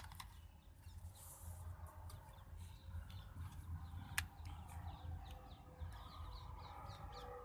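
Faint birds chirping repeatedly in the background over a low steady rumble, with one sharp click about four seconds in.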